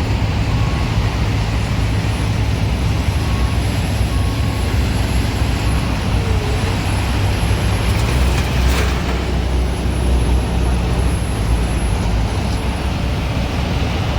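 Diesel engine of a heavy construction machine running steadily. Its reversing alarm beeps over the first few seconds, and a brief hiss comes about nine seconds in.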